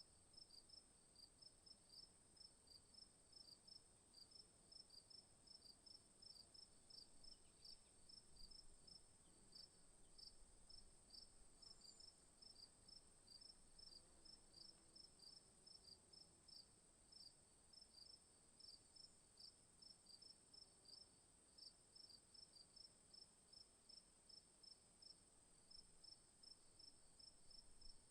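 Crickets chirping, faint: regular short chirps a few times a second over a steady high-pitched trill.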